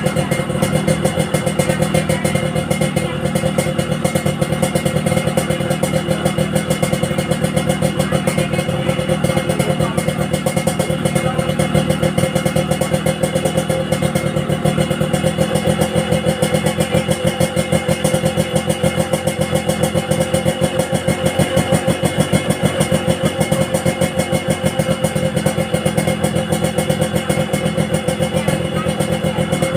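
An engine running steadily at an even, pulsing idle.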